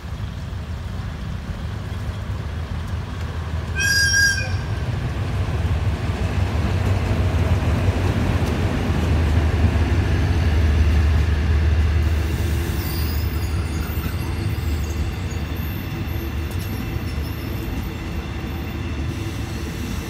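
Diesel-hauled passenger train pulling in slowly: a steady low rumble of the locomotive and coaches rolling past on the rails, growing louder toward the middle. There is a brief high-pitched squeal about four seconds in, and faint high squeaks later on.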